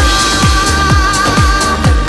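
Background music with a steady electronic kick-drum beat under a long held, slightly wavering synth note.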